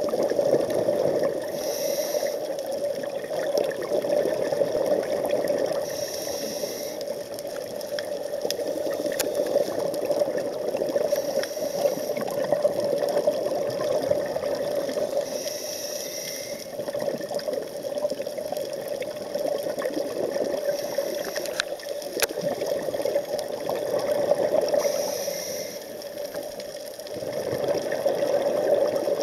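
Underwater sound picked up through a camera's waterproof housing on a scuba dive: a steady, muffled rush of water. A short high hiss comes back every four to five seconds, in step with a diver breathing through a scuba regulator.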